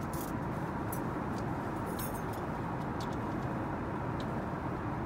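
Steady airliner cabin noise of an Airbus A380 in flight, with a few faint light clicks and clinks as table settings are handled.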